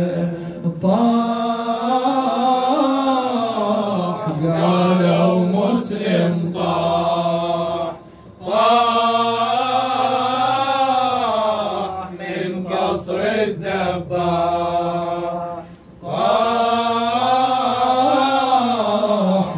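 A male reciter chanting a Shia mourning lament solo into a microphone: long, wavering melodic phrases, with short breaks about 8 and 16 seconds in.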